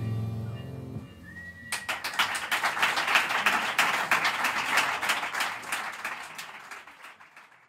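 A jazz quartet's held final chord, with tenor saxophone, double bass and cymbals, rings out and dies away in the first second. Then the audience breaks into applause, with a short whistle just before it, and the applause fades out near the end.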